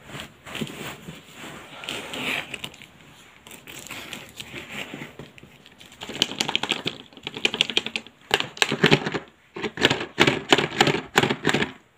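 Newspaper and packaging rustling and crackling as hands unwrap a phone box. The crackles come thick and fast in the second half.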